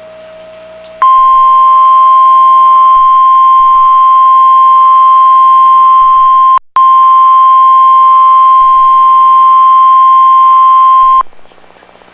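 Weather-radio emergency alert tone: a single loud, steady high beep held for about ten seconds, with a brief dropout near the middle. It is the alarm that announces a severe thunderstorm warning.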